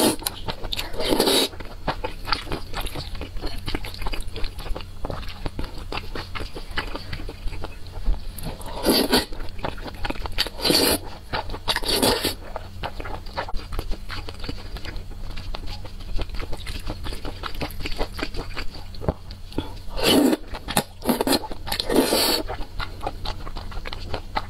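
Close-miked eating sounds: steady wet chewing and mouth clicks while a saucy, spicy noodle-like dish is eaten with chopsticks. Seven louder, short slurps stand out: one about a second in, three around the middle and three near the end.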